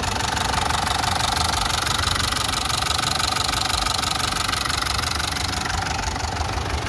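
Diesel engine idling steadily after a new set of fuel injectors has been fitted.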